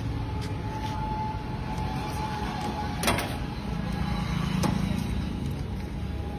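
Steady low background rumble with a faint steady tone, broken by two sharp clicks about a second and a half apart, the first the louder.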